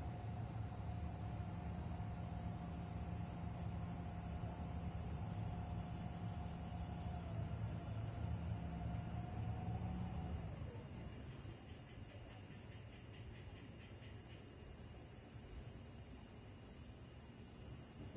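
Steady, high-pitched chorus of insects. Beneath it, a low hum and a steady mid-pitched tone stop about ten seconds in.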